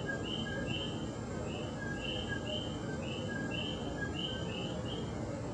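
Several coquí frogs calling, each call a short lower note followed by a higher one, about two calls a second from overlapping frogs, over a steady low rumble.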